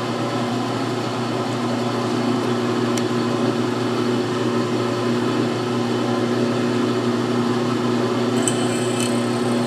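Drill press motor running with a steady hum while the bit drills through a thin sheet-metal frame backed by a wooden block.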